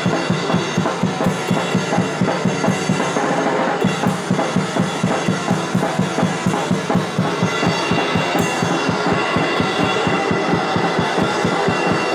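Live band playing fast, heavy music: a drum kit driving a rapid, steady bass-drum beat with snare and cymbals, under amplified electric guitar.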